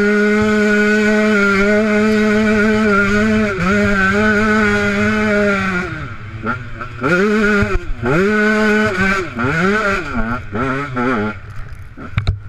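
Two-stroke 150 XC enduro motorcycle engine held at high revs for about six seconds, with a couple of brief dips. Then it is revved up and down repeatedly as the throttle is opened and closed. There are a couple of knocks near the end.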